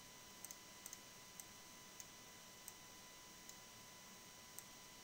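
Near silence with about nine faint clicks of a computer mouse and keyboard, a few in quick pairs near the start.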